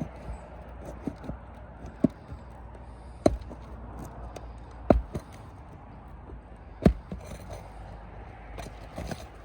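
Four sharp knocks, unevenly spaced, with a few lighter taps between, from a tool working under a roof shingle to pull out a roofing nail.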